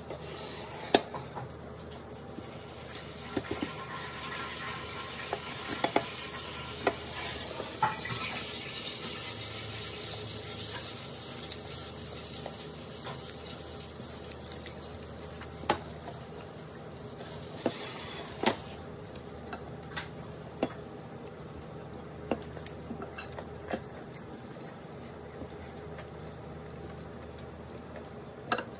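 Close-up eating sounds of fried chicken and rice eaten by hand: chewing and pulling at the chicken, with scattered sharp clicks and taps. A louder stretch of rustling noise comes about a quarter to a third of the way in.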